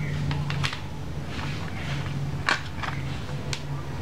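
Scattered plastic clicks and taps as the set-top box's black plastic case is handled and its circuit board lifted out, over a steady low hum.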